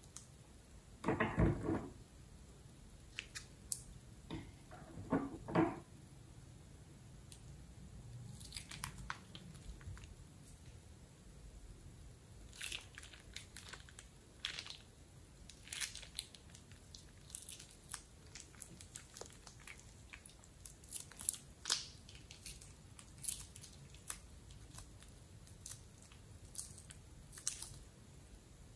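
A plastic piping bag is handled with two brief squeaky rubbing sounds, then crackles and clicks as thick green slime is squeezed out of it in pops.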